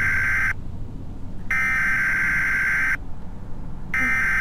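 Electronic alarm beeping: long, steady, high-pitched tones, each about a second and a half, with a pause of about a second between them.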